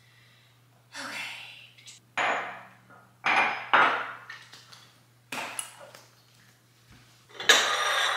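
Lidded ceramic pumpkin-shaped soup bowls and their lids being set down and clinked against a countertop: about half a dozen separate clinks and knocks, each ringing briefly, the loudest near the end.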